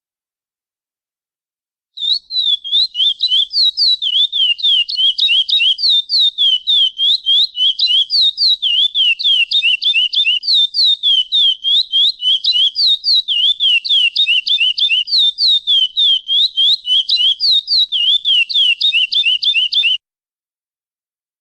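Lesser seed finch (curió) singing a long, fast run of clear down-slurred whistled notes, alternating higher and lower, about three or four a second. It starts about two seconds in and cuts off abruptly near the end.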